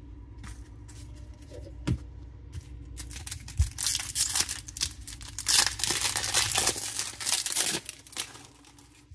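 A Topps baseball card pack's shiny wrapper being handled, then torn open: a few light clicks, then from about three seconds in a long run of crinkling and tearing that stops shortly before the end.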